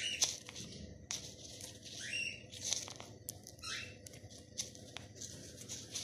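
Cockatiel burrowing and rolling in a bowl of seeds, the seeds rustling and pattering in short bursts, with a few sharp clicks. Three short rising chirps come through, near the start, about two seconds in and again a little later.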